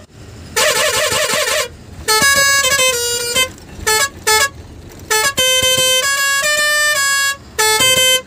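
Truck's musical horn playing a tune: a warbling, wavering tone sounds twice in the first two seconds, then a run of clear notes steps up and down in pitch with short breaks between them.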